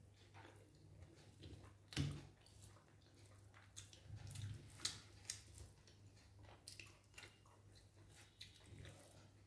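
Faint eating sounds: chewing a mouthful of chicken tehari, with scattered small clicks, the most distinct about two seconds in and near five seconds, over a faint steady low hum.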